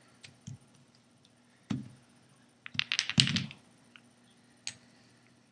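Glass nail polish bottles clicking and knocking as they are picked up and set down on a tabletop: a few single knocks, and a quick cluster of clinks about three seconds in.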